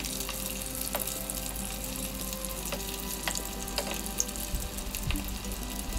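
Chicken-and-lentil shami kababs shallow-frying in hot oil in a pan: a steady sizzle with scattered pops and crackles.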